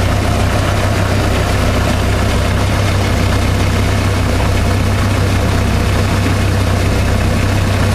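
A 1990 Jeep Cherokee engine idling steadily, heard from inside the cab as a low, even hum.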